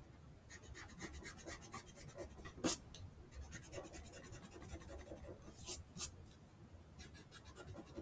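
Pencil on drawing paper, faint quick short sketching strokes, with a firmer stroke about three seconds in and a few more later.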